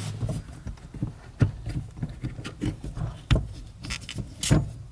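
Scattered clicks and knocks of car pedal parts and their worn rubber pads being handled, with a few sharper knocks, the loudest about three and a half seconds in.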